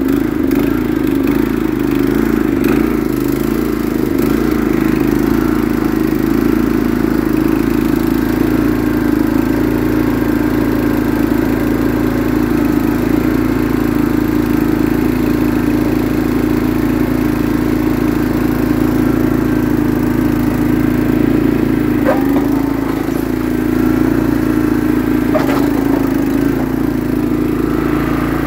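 Honda 724 tracked snowblower's single-cylinder four-stroke engine running steadily, warming up after a cold start. Two brief clicks sound in the second half.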